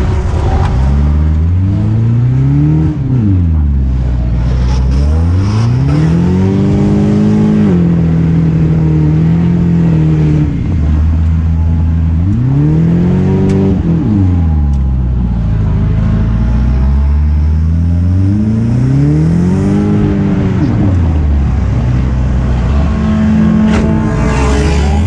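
Four-cylinder race car engine heard from inside the cabin under racing load: the revs climb hard and then drop off sharply, about four times, as the car powers down the straights and lifts for the corners.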